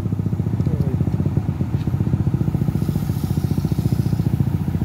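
Engine idling with a fast, even chugging pulse.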